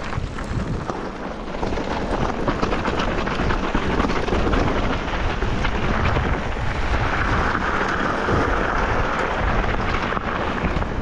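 Wind buffeting the microphone over the crunch and rattle of mountain-bike tyres riding over loose stone and gravel, with many small knocks throughout.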